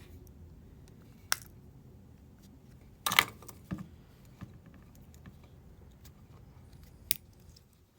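Plastic key fob case of a Mazda key clicking and snapping as it is pried apart with a screwdriver: a few separate sharp clicks, the loudest a quick cluster about three seconds in.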